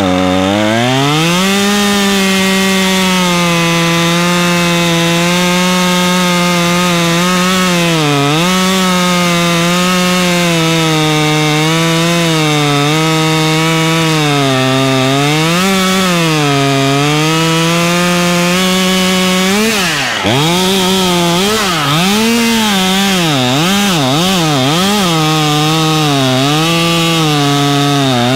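Husqvarna T540 XP Mark III two-stroke top-handle chainsaw running at full throttle while cutting an upcut through wood; the engine pitch sags a few times under load and recovers. About twenty seconds in the pitch drops briefly, then the saw revs up and down several times in quick succession.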